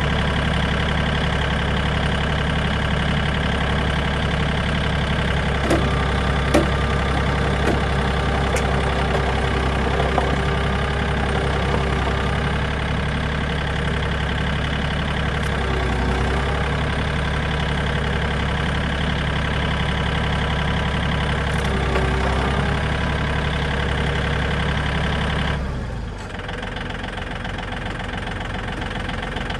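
Tractor engine running steadily under load as it pulls on a bent car chassis to straighten it, with a few sharp clicks in the first third and again later. Near the end the engine note drops and eases off.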